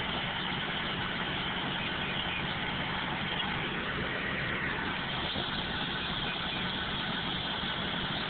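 A vehicle engine idling steadily under an even hiss.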